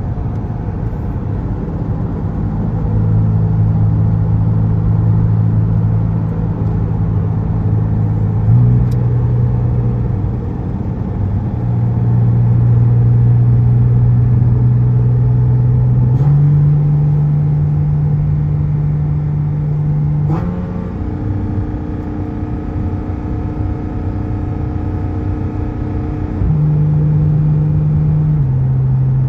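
Porsche 718 GT4 RS flat-six engine with Dundon street headers and catted wave pipes into the stock muffler, heard from inside the cabin while driving. Its steady drone holds one pitch for several seconds at a time, steps higher a few times, and drops back near the end.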